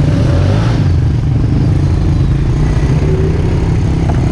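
ATV engine running steadily, heard up close from the rider's own machine.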